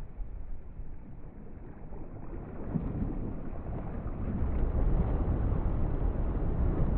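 Deep, noisy rumble from a composed soundscape meant to evoke a volcanic eruption, growing louder from about three seconds in.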